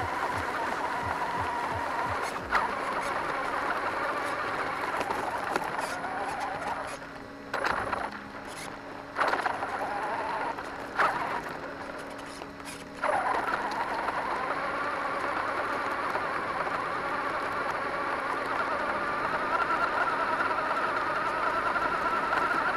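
Radio-controlled monster truck driving over gravel, heard from its onboard camera: a steady motor and gear whine that rises and falls with the throttle. The whine drops away several times in the middle as the truck coasts, with a few sharp knocks.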